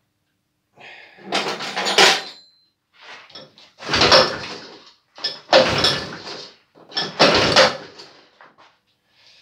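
Four hard pulls on the recoil starter of an Ockelbo 600 snowmobile's two-stroke engine, each a rasp of about a second as the cord whips out and the engine cranks over. It does not catch: the first cold start attempt after the crankcase seals were replaced.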